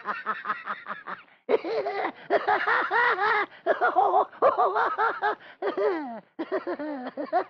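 Voices laughing in quick bursts, then breaking into long rising-and-falling whoops and cries, with several voices at once: people giddy on laughing gas (nitrous oxide) at a stage demonstration, acted for radio.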